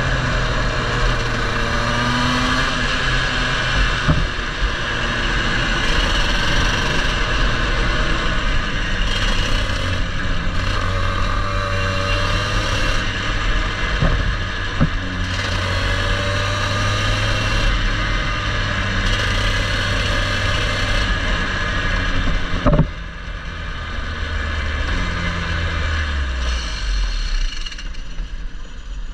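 Onboard sound of a racing kart's engine running at speed with rushing noise over the microphone. About 23 seconds in there is a sharp knock and the sound drops to a lower level, and near the end the engine note falls away as the kart slows.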